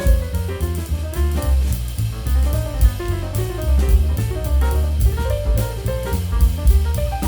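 Background music: a jazzy track with a drum kit beat and melodic lines.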